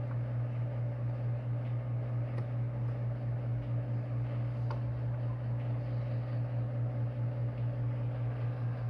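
A steady low hum, with a couple of faint ticks about two and a half and five seconds in.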